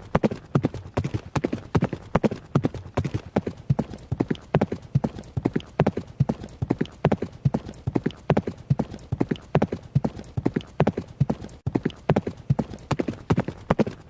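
Horse running: rapid, rhythmic hoofbeats striking the ground in a steady, unbroken pattern.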